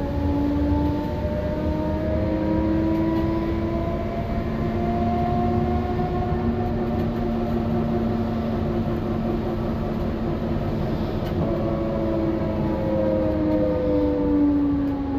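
Solaris Trollino 12M trolleybus's Emit STDa 280-6B electric traction drive whining over road rumble. Its pitch rises slowly as the trolleybus gathers speed, holds, then falls from about eleven seconds in as it slows.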